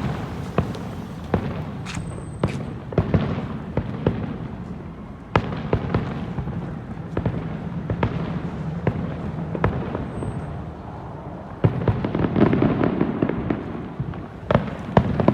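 Fireworks display with many irregular bangs and crackles over a continuous rumble. It grows denser and louder about twelve seconds in and again near the end.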